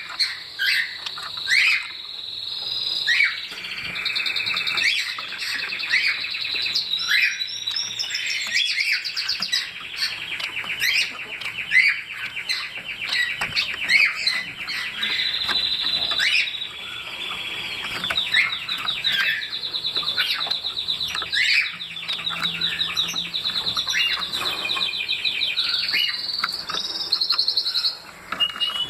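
Bengalese finch (society finch) singing: a long run of rapid, buzzy, scratchy trills with short rising chirp notes mixed in.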